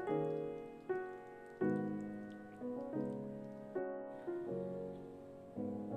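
Background music: a light keyboard tune in a piano-like voice, its chords struck roughly once a second and left to die away.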